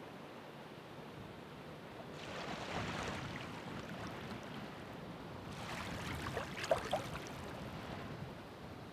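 Ocean waves breaking and washing up the shore. One wave surges in about two seconds in. A second, brighter wave follows a few seconds later, hissing and fizzing, with a couple of sharp splashes near its peak.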